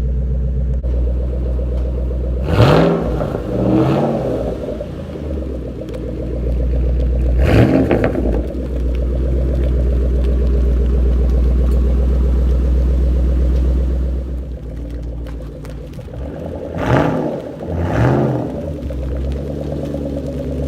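Supercharged 5.4-litre V8 of a 2011 Shelby GT500 idling, revved in quick rises and falls a few times: twice early, once in the middle, and twice near the end.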